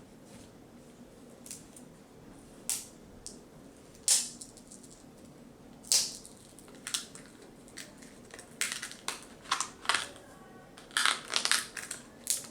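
Scattered clicks, taps and scrapes from hands working a laptop LCD panel loose from its lid. They come thicker and faster near the end.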